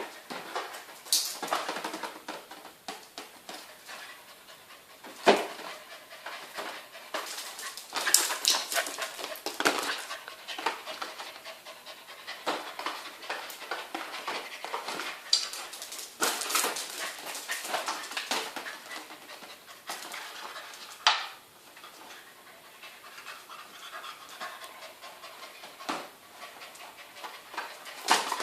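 Welsh corgi panting hard, with scattered sharp knocks and scuffs throughout.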